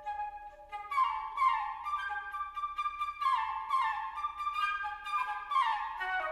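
Solo flute playing contemporary classical music. Soft held notes give way, about a second in, to quick falling runs that recur every couple of seconds, each settling onto sustained notes.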